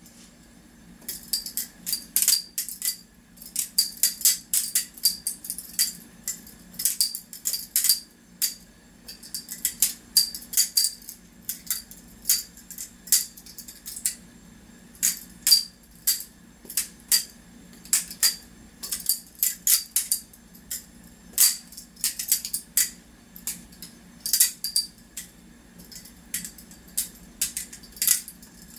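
BRS Alpha Beast butterfly knife (balisong) being flipped: rapid, irregular metallic clicks and clacks as the handles swing around the blade and knock together, in quick clusters with brief pauses between tricks.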